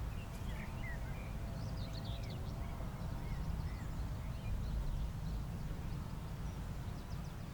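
Small birds chirping in short, scattered calls over a steady low rumble of wind.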